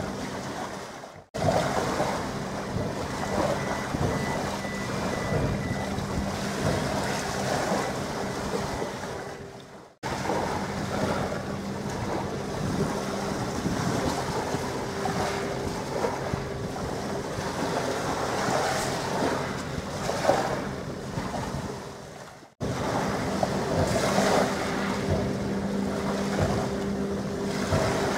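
Wind buffeting the microphone over the wash of open water, with a steady low hum underneath. The sound drops out briefly three times.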